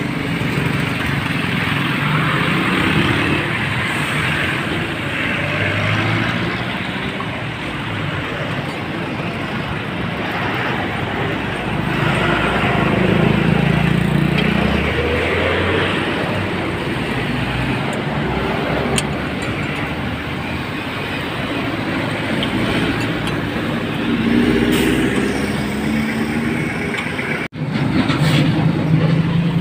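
Highway traffic passing: cars and trucks going by in a steady stream of road noise, with a brief cut-out near the end.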